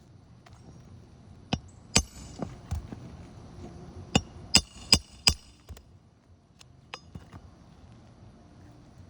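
Metal hand tools striking on an asphalt shingle roof: a series of sharp, clinking blows, the loudest four coming in quick succession in the middle, then a few light taps.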